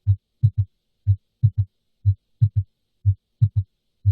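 Heart sounds with an S3 gallop: a single low thud (S1) followed by a close pair of thuds (S2 then S3), the 'Ken-tuck-y' triple rhythm, repeating about once a second. The S3 is an early diastolic filling sound, a classic finding in acute heart failure with high left atrial pressure.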